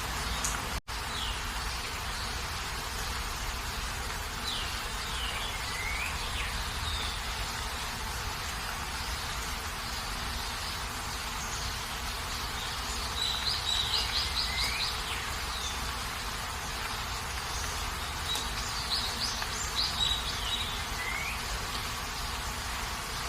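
Steady hiss of rain with a bird calling over it several times: quick runs of high notes and short falling slurs that come back every few seconds. The sound cuts out for an instant about a second in.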